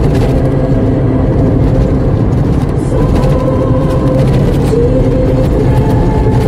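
A road vehicle driving along a paved road: a steady engine hum under loud road and wind noise, its pitch shifting slightly a few times.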